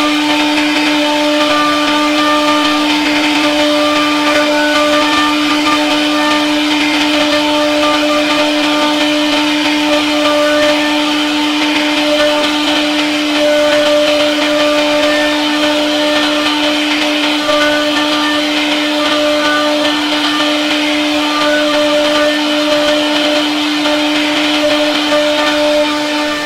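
CNC router spindle running at a steady, unchanging pitch while its bit carves a relief pattern into a wooden door panel, the whine of the spindle over the rough noise of the bit cutting wood.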